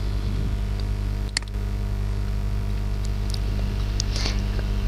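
Steady low electrical hum with background hiss from the recording setup, broken by a single sharp mouse click about a second and a half in and a few faint ticks near the end.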